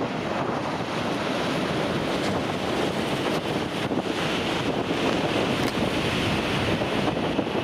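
Tokaido Shinkansen Nozomi bullet train running past on the viaduct: a steady rushing noise with wind buffeting the microphone, the hiss growing brighter about halfway through.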